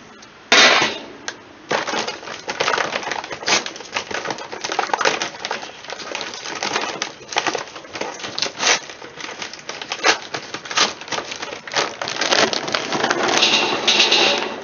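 Clanks and rattles of a Weber kettle grill's metal lid and grates being handled, with a loud clank about half a second in. Near the end, charcoal briquettes clatter out of a paper bag onto the grill's grate.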